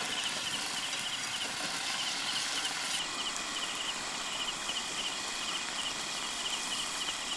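Mushrooms frying in hot oil in a pan over a wood fire, with a steady sizzle. Night insects chirp in short, regular high pulses throughout.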